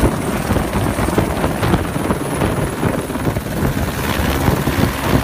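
A light helicopter running close by, its main rotor chopping steadily, as it sits on the ground and lifts off overhead.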